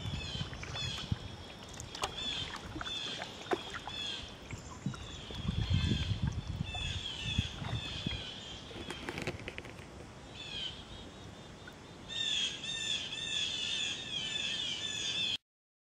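Songbirds singing repeated chirping phrases, with the swish and occasional knock of a canoe paddle in the water. The birdsong turns busier and louder about twelve seconds in, then the sound cuts off suddenly.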